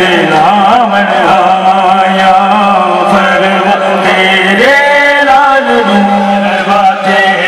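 A nohay, a Shia mourning lament, chanted by a voice over loudspeakers, in long held notes that waver and slide in pitch.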